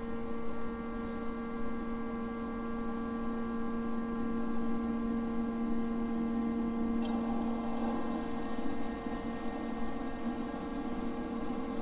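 Air conditioner running while its water is drained, a noisy, steady electric hum with fainter higher tones above it and a few faint clicks about seven seconds in.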